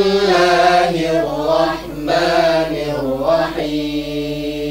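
A man's voice chanting a Quran-recitation melody in maqam Rast, winding through ornamented turns, then holding one long steady note from about three and a half seconds in.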